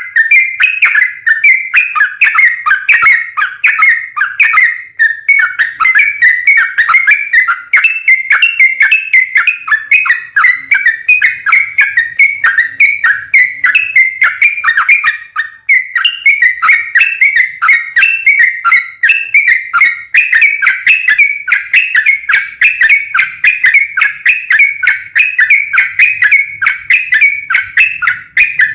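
Yellow-vented bulbul (trucukan) song: a long, loud run of rapid, bubbly whistled notes that goes on without a pause. It is the bulbul's fighting song, used as a lure to make other bulbuls answer.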